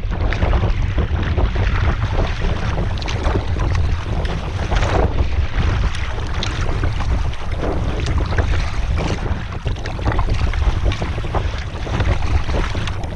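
Wind buffeting the microphone of a camera mounted on a canoe, with water splashing irregularly against the canoe's side from the waves and paddle strokes.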